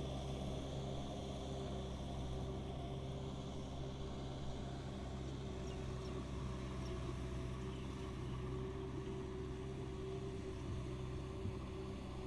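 Kubota M6040 SU tractor's four-cylinder diesel engine running steadily at a constant pitch while it pulls a rotary tiller through muddy ground.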